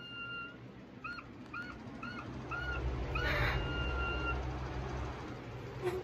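Whistling: a held clear note, then a run of about five short rising-and-falling chirps, then another held note. A short harsh rasp breaks in about three seconds in.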